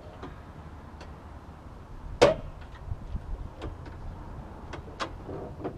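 A sharp knock about two seconds in, then a string of light clicks and taps as hands work at the front of the pickup's closed hood and its latch.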